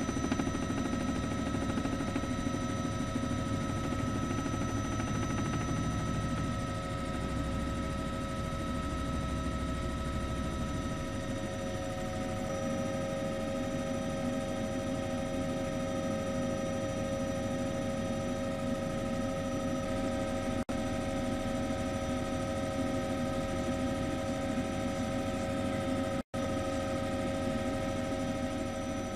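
Steady mechanical drone with several constant high whining tones over a low hum, cutting out briefly twice in the second half.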